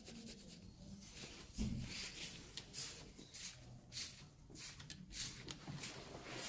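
Quiet dressing-room tone with faint rustling and small clicks from a hand-held phone being moved about, and a soft bump about one and a half seconds in.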